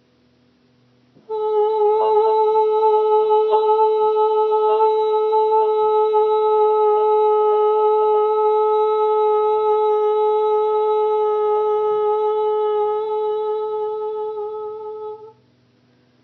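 A woman's voice holding one long, steady sung note, light-language toning, starting about a second in and held for about fourteen seconds before stopping abruptly, over a faint low drone.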